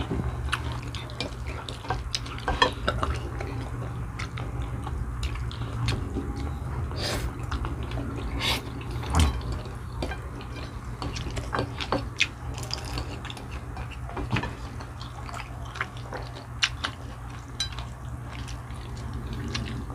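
Cutlery clicking and scraping against a plate during a meal, in scattered irregular clicks, over a steady low hum.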